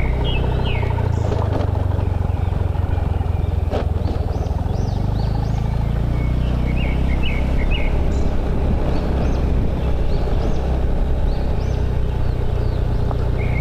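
Motorcycle engine running steadily under way, with road and wind noise, while birds give many short chirps again and again.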